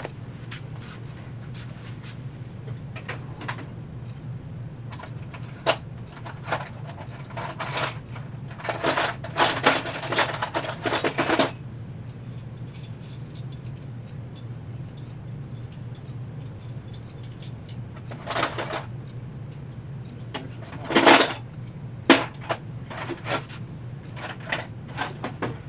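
Metal hand tools clinking and rattling as they are handled and sorted through, picking out a punch; a dense spell of rattling about nine to eleven seconds in and a few sharp clicks later on, over a low steady hum.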